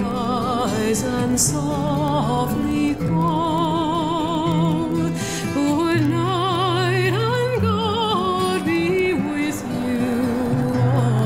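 Background music: a melody with a strong wavering vibrato over steady held bass notes.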